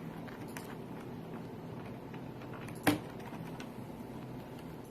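A bird pecking and picking at a computer keyboard: scattered faint key clicks over a steady low hum, with one sharp, louder click about three seconds in.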